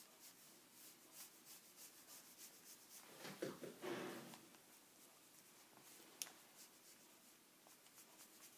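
Chinese ink brush stroking and dabbing on paper: faint, soft scratchy strokes a few times a second. A louder brief noise comes about three seconds in, and a single sharp click a little after six seconds.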